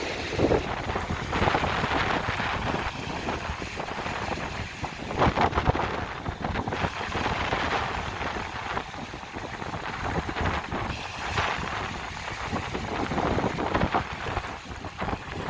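Baltic Sea waves breaking and washing up the beach, swelling every few seconds, with wind buffeting the microphone.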